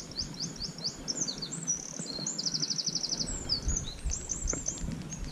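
Songbird singing: a run of quick, high whistled notes, a fast trill about two seconds in, then more notes, over the low steady rush of river water.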